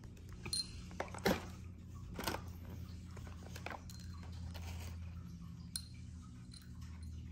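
A kitten pawing and nosing at a small paper card held in a hand: a handful of short, sharp taps and rustles, the loudest about a second and two seconds in, over a steady low hum.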